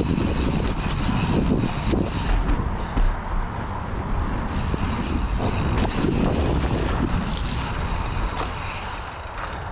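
A mountain bike being ridden fast over dirt jumps and a wooden ramp deck: wind rushing over the microphone and tyre noise on dirt and plywood, with knocks and rattles from the bike over bumps. The loudest thump comes about three seconds in.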